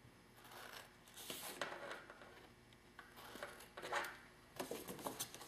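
Scissors snipping through cardstock: several short, quiet cuts.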